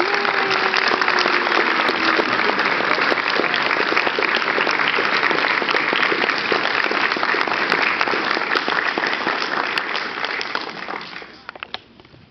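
Audience clapping and applauding steadily, then dying away about a second before the end.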